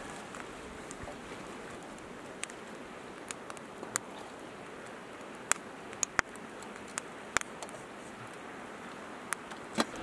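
Steady rush of a river running over rocks, with about ten scattered sharp clicks and taps.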